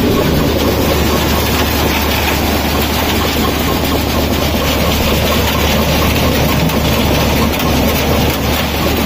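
Groundnut decorticator (peanut shelling machine) running steadily while shelling: a constant low hum under a dense, continuous rattle of pods and kernels moving through the machine.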